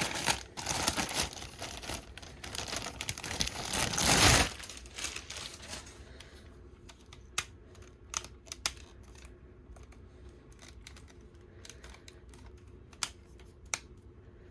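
Packaging rustling and crinkling as a plastic toy sword is pulled out of its cardboard box, loudest about four seconds in. After that, scattered light clicks and taps as the plastic toy is handled.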